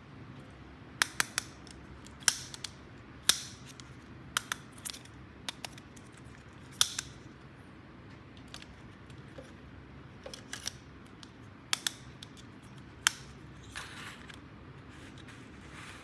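Irregular sharp clicks and taps of small hard plastic toy parts being handled, with a couple of soft rustles.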